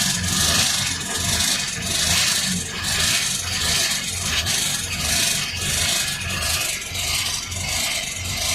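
Rhythmic back-and-forth scraping, about one stroke a second, each stroke with a dull low thump, like hand filing or sanding.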